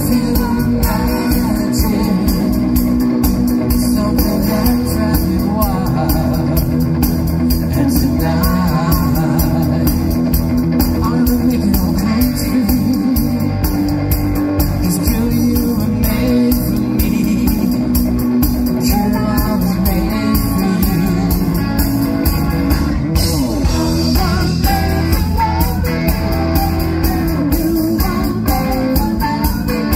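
Live rock band playing, with singing over electric guitar and a drum kit.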